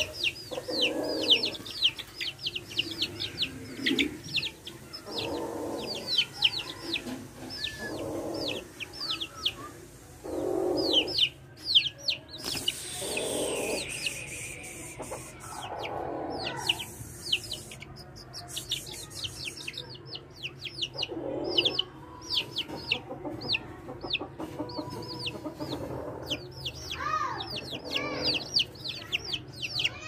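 Aseel chicks peeping continuously: a rapid stream of short, high, downward-sliding peeps, several a second, with lower, longer calls coming every second or two underneath.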